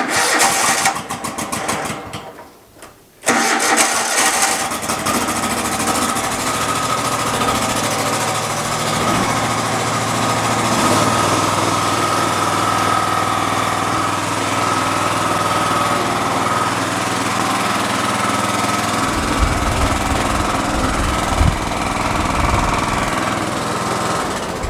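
Exmark Lazer Z zero-turn mower's 27 hp Kohler V-twin engine: the starter cranks for about two seconds, then after a short pause the engine starts about three seconds in and runs steadily. It pulls away near the end. It is running well with no knock after an oil change, new spark plugs and a new carburetor.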